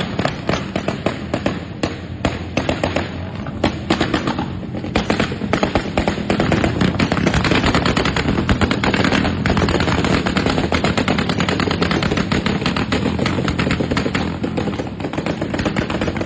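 Motorcycles with modified silencers firing off a rapid, continuous volley of loud pops and crackles from the exhaust, over the engines' running note, which grows louder about six seconds in.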